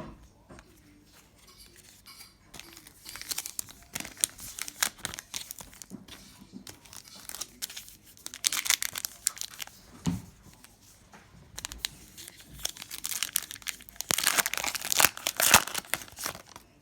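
A trading card pack wrapper being torn open and crinkled by hand, in irregular crackling bursts that are loudest near the end, with a dull knock about ten seconds in.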